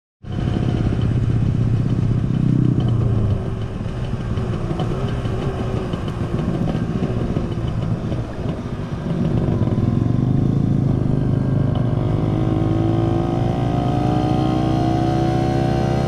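Small step-through motorcycle's engine running while it is ridden along a road. From about ten seconds in it pulls steadily, its pitch rising as it accelerates.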